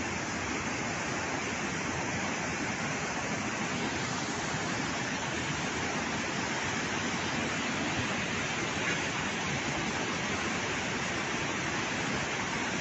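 Fast, muddy floodwater of a river in spate rushing past a bridge pier: a steady, unbroken rush of churning water.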